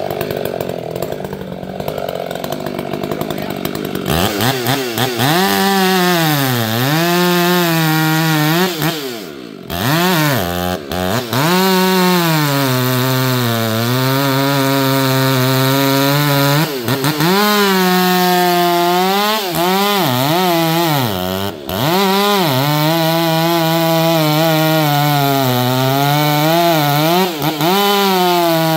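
Two-stroke chainsaw cutting into black walnut, its engine pitch sagging under load and climbing back again and again. The first few seconds are a rougher, noisier run before the steady engine note takes over.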